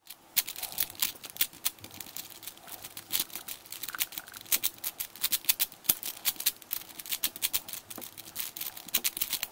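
Plastic layers of a Cube4you 3x3x5 puzzle cube being turned by hand to scramble it: a rapid, irregular run of clicks and clacks.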